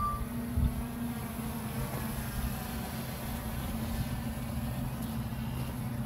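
Strong gusting wind buffeting the microphone: a steady low rumble with a faint low hum underneath.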